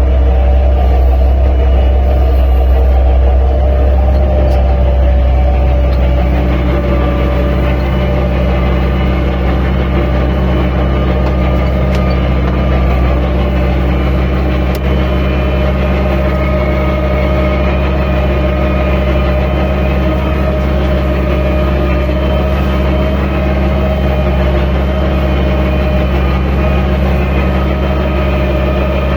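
Landini 10000 tractor's engine running steadily under load while pulling a three-furrow plough.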